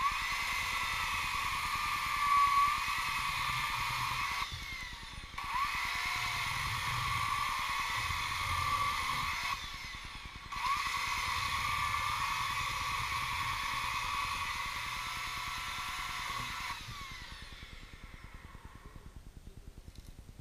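High-pitched mechanical whine in three runs, each rising in pitch as it starts and stopping suddenly, with two short breaks about five and ten seconds in.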